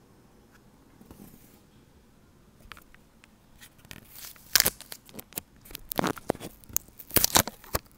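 Close handling noise: fingers scraping, tapping and knocking on or right by the microphone. Quiet at first, then from about two and a half seconds in a run of clicks and rustling scrapes, loudest about halfway through and again near the end.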